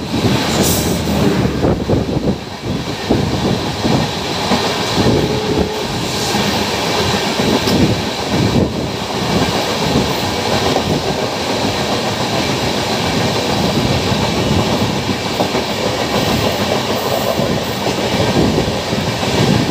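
Two Indian Railways passenger trains passing each other on adjacent tracks, heard from an open doorway of one of them. An electric locomotive and then its coaches go by close alongside: a loud, continuous rumble and rush of air, with wheels knocking irregularly over the rails.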